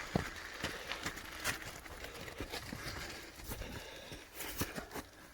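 Footsteps on a rough trail: irregular light knocks and scuffs.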